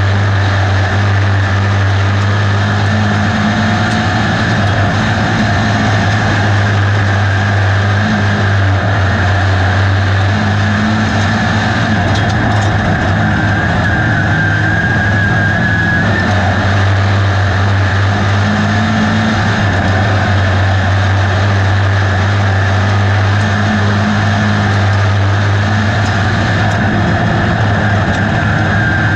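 USRA B-Modified dirt-track race car's V8 engine under racing load, heard from inside the cockpit: a loud, steady drone that rises and dips only slightly through the turns.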